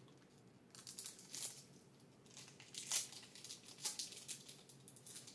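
Wrapper of a 2008 Upper Deck Rookie Threads card pack being torn open and crinkled by hand: faint, scattered crinkles and rips, the loudest about three seconds in.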